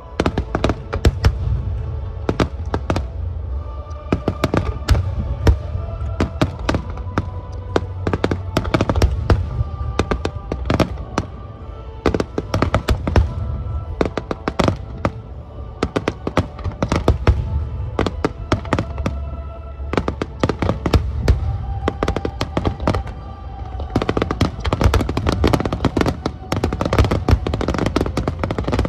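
Rapid, overlapping fireworks bursts of a starmine finale, many bangs a second and loudest in the last few seconds, over music with held notes.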